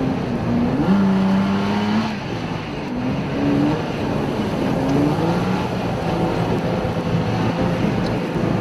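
1996 Toyota Tacoma's engine revving up and down again and again as the truck spins donuts in snow, its pitch climbing and dropping several times over a steady rushing noise.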